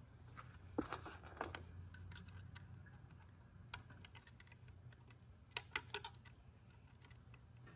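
Light metallic clicks and scrapes of a long pick tool working a snap ring free inside a Subaru 4EAT automatic transmission case. The clicks come in two small clusters, about a second in and again after about five and a half seconds, with scattered single ticks between.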